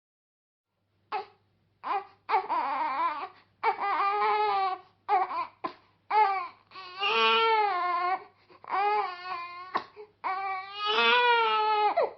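A young child crying in repeated high-pitched wailing bursts, starting about a second in.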